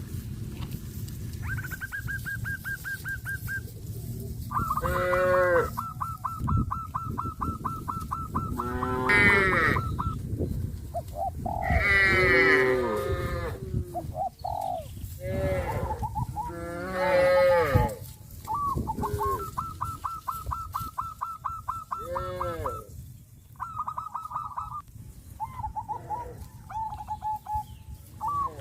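Cattle mooing several times, long low calls rising and falling in pitch. Between the moos come long runs of rapid, evenly pulsed high bird calls, each lasting a few seconds.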